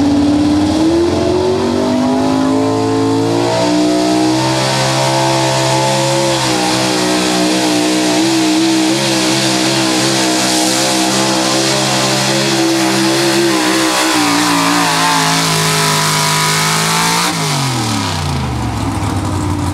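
Modified Ford F-150 pulling truck's engine run at high revs under full load while dragging a weight-transfer sled. The revs climb over the first few seconds, hold steady, then drop steeply near the end as the pull finishes.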